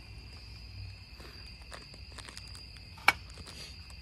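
Steady chorus of crickets trilling. About three seconds in comes one sharp click as a knife cuts through a candy bar onto a cutting board.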